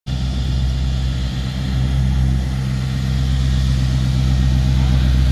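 Hot rod's engine running with a steady, deep exhaust rumble as the car rolls slowly past, getting a little louder toward the end.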